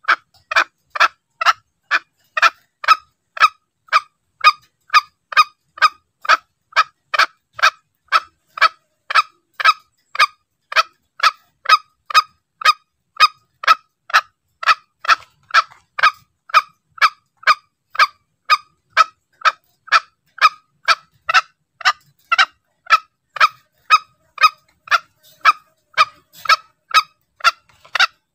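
Green junglefowl lure call: short, sharp clucking notes repeated evenly at about two a second without a break.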